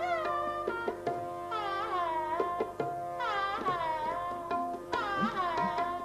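Shehnai playing a Hindustani classical raga in several short phrases, its notes bending and gliding between pitches, over a steady drone, with tabla strokes beneath.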